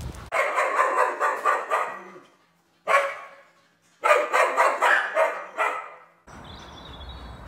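A dog barking in rapid runs: one burst of quick barks, a single bark about halfway, then a second burst, with outdoor wind noise taking over near the end.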